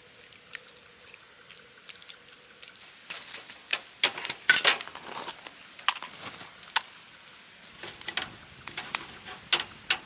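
Firewood burning in a metal fire pit, crackling and popping as a small electric fan blows air onto the coals. The pops are faint and scattered at first, then come thick and loud about four to five seconds in as the fire flares.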